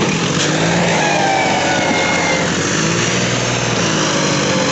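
Massey Ferguson tractor's diesel engine working under load, pulling a trolley loaded with earth through soft, dug-up ground. The engine runs steadily, its note rising and falling.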